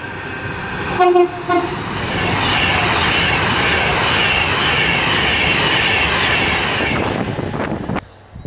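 A train horn sounds two short blasts about a second in. This is followed by the loud, steady rush of a train passing at speed, wheels running on the rails, which drops away sharply about eight seconds in.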